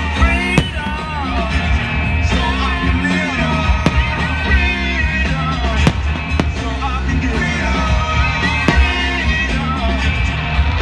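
Music with a singing voice over a steady bass, crossed by several sharp bangs from fireworks bursts.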